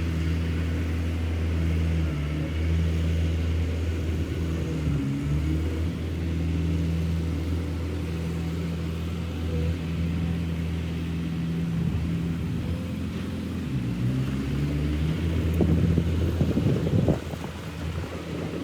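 Heavy diesel machinery engine running steadily under load, its pitch sagging briefly twice as it works. A run of knocks and clanks near the end.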